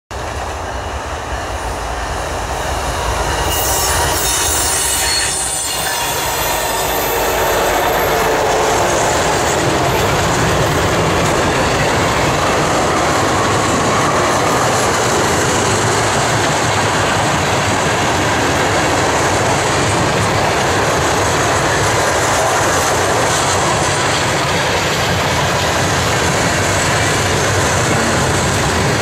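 Freight cars of a mixed manifest train rolling past at speed: a loud, steady rush of steel wheels on the rails that builds over the first several seconds. A high-pitched wheel squeal comes in about three to six seconds in.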